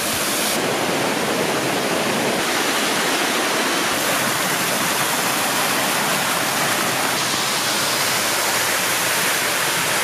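Cascading waterfall pouring over rock ledges into a pool: a steady, even rush of falling water.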